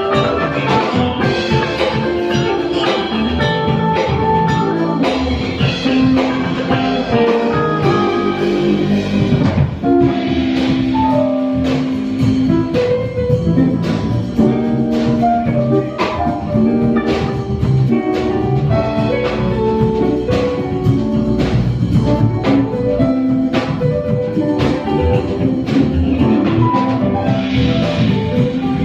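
Live jazz band playing, with guitar melody lines over a drum kit keeping a steady beat.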